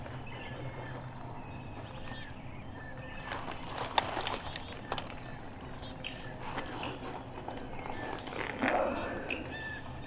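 Songbirds chirping here and there in the woods, with bursts of crunching and rustling in dry leaf litter about three to five seconds in and again near nine seconds.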